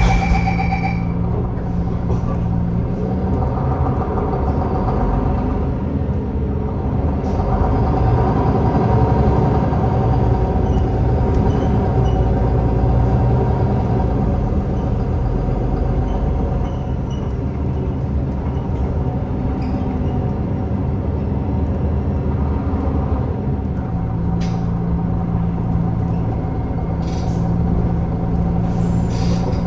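MAN Lion's City Hybrid bus running on its MAN D2066 10.5-litre straight-six diesel. It idles steadily, then pulls away and drives along with the engine note changing, and settles back to a steady idle for the last few seconds, with brief air hisses near the end.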